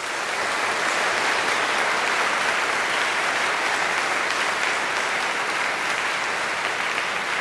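A large seated audience applauding, a steady wash of many hands clapping in a reverberant hall. It swells in right at the start and holds steady.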